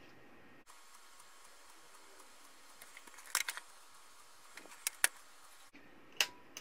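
Sharp clicks and light clacks from the power button and front panel of a Nice-Power SPS-W605 bench DC power supply as it is switched off and back on. The clicks come in a small cluster about three seconds in, a few more around five seconds, and one single click near the end, over a faint steady hiss.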